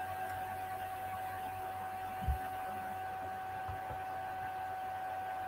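Room tone: a steady hiss with a thin constant whine, and a soft low thump a little over two seconds in.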